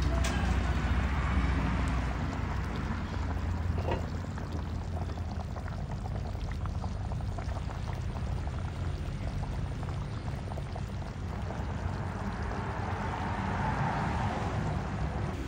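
Chicken curry boiling hard in a metal pot: steady bubbling with many small pops, over a low steady rumble.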